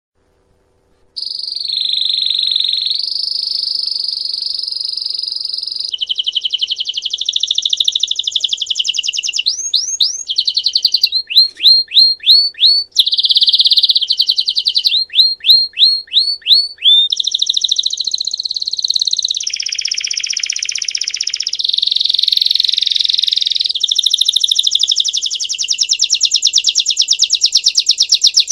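Belgian canary singing in the 'campainha' (bell) song style. It starts about a second in and runs as one long unbroken song of rolling trills, buzzy held phrases and quick strings of upward-sweeping whistled notes.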